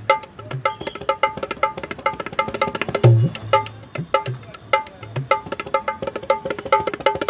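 Indian-style hand percussion played in a fast, steady rhythm for a sound check: ringing high strokes over deep bass strokes that hang on, the heaviest bass stroke about three seconds in.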